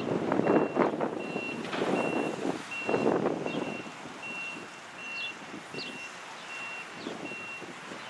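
Vehicle reversing alarm beeping evenly at a high pitch, about three beeps every two seconds. Wind buffets the microphone in gusts over the first few seconds.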